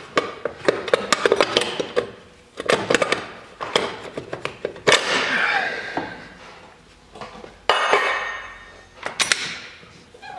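Metal clicks, knocks and clatter from hand tools and the recoil starter cover as the cover is unbolted and pulled off the engine of a Polaris Sportsman ATV, exposing the flywheel. The clicks come in quick clusters, with a few louder scraping clatters partway through.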